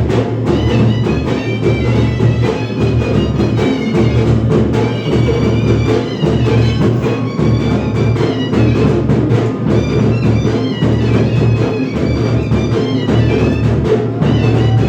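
Dhangari folk music: dense, rapid drumming under a high, wavering melodic line that runs on without a break.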